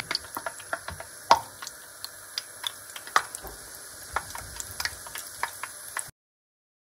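Doughnut batter frying in hot oil in a pan: a steady sizzle with frequent irregular pops and crackles. It cuts off suddenly about six seconds in.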